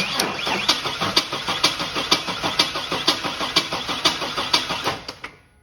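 Chevy S10's 4.3 V6 engine being cranked over by the starter for about five seconds in an even pulsing rhythm without catching, then the key is released and it stops abruptly. A no-start the mechanic puts down to low fuel pressure, common on these Vortec engines.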